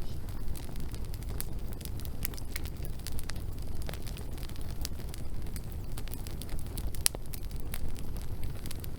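Campfire burning: a steady low rumble of flames with frequent sharp crackles and pops of the burning wood, one louder pop about seven seconds in.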